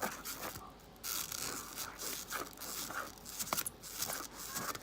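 Irregular scraping, crinkling and clicking handling noises while slime ingredients are worked in a plastic bowl.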